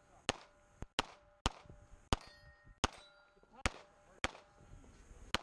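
CZ75 Shadow pistol shots, about eight in a string at roughly half-second to one-second intervals, each sharp crack followed by a faint ringing tail.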